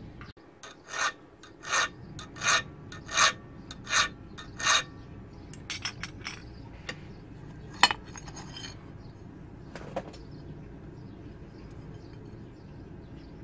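Hand file rasping on the steel spine of a knife blade clamped in a vise, cutting the notches in the spine. There are about seven even strokes, one roughly every 0.7 s, in the first five seconds, then lighter scraping and a sharp click near 8 s, after which it goes quiet.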